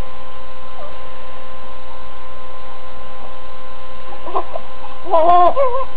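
A colicky infant fussing, with a brief whimper about four seconds in and a short cry near the end, over a steady electrical hum.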